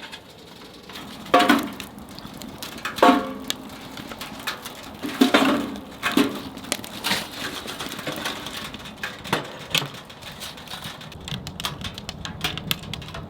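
Wood fire crackling with a run of small snaps and ticks, broken by about six sharp knocks or clatters, each with a short ring.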